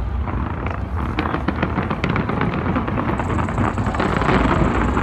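Fireworks going off in a dense, continuous crackle of many small sharp pops.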